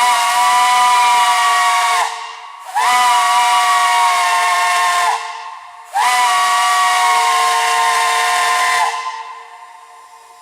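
A steam whistle blown in three long blasts of about two to three seconds each, each blast a chord of several tones over rushing steam. The pitch scoops up slightly as each blast opens.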